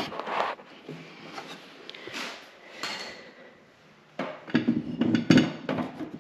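Handling noise around a snowmobile's open chaincase: a sharp click, then scattered light clinks and knocks. About four seconds in comes a denser run of knocks and rattles.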